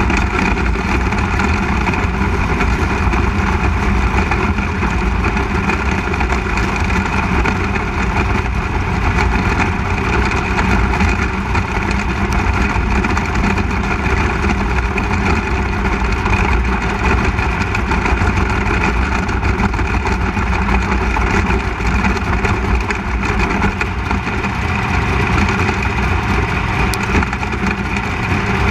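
360 sprint car's V8 engine running steadily at low speed, with no hard revving, as the car rolls slowly off the track.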